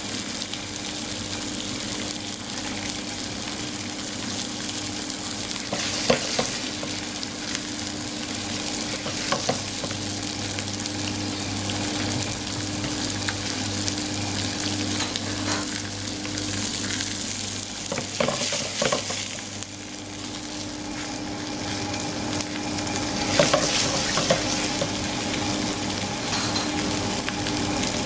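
Two crusted tuna steaks sizzling as they sear in hot oil in a frying pan. The crust is pistachio, black sesame and pine nuts. There is a steady hiss with scattered crackles and pops of spattering oil.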